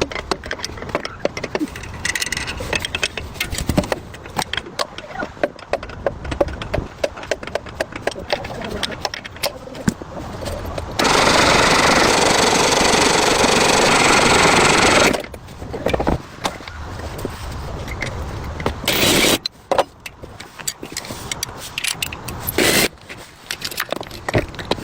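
Workshop restoration work on a rusty tractor: dense scraping and clicking of tools on metal. About 11 seconds in comes a loud, steady hiss lasting about four seconds, and two short hissing bursts follow later.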